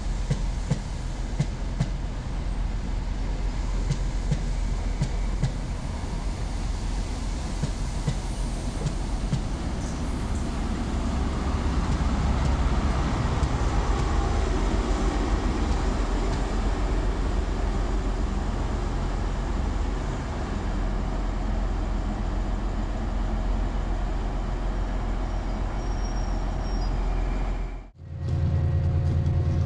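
CrossCountry Class 43 HST (InterCity 125) running past the platform: carriage wheels clicking over rail joints, growing louder as the rear power car's MTU diesel engine goes by. Near the end the sound cuts off suddenly and a Class 66 diesel locomotive's two-stroke V12 engine takes over with a steady low drone.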